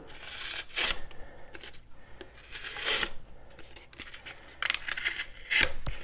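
Stainless steel blade of a cheap folding pocket knife slicing through a cardboard packaging card, in about four separate cuts.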